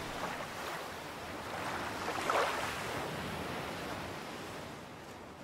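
Ocean waves washing onto a sandy beach, swelling to a peak about two and a half seconds in and then easing off.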